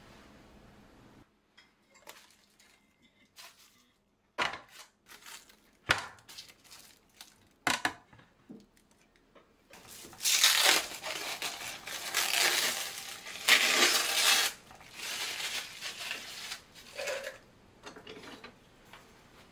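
Plastic cling wrap crinkling loudly in several spells as it is peeled off the mouth of a glass pickle jar, about halfway in. Before it, scattered light clicks and taps of the glass jar being handled.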